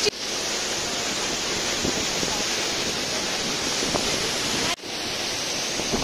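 Steady rushing noise of a waterfall crashing into a rocky pool. The sound breaks off for an instant about three-quarters of the way through, then comes back.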